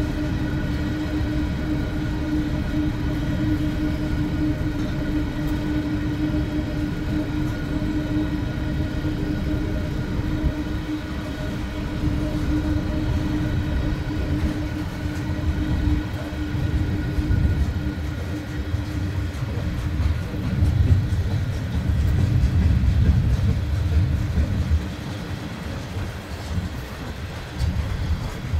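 Freight cars rolling past on the rails, a steady low rumble of wheels and trucks that swells about twenty seconds in. A steady hum sits under it and fades out about halfway.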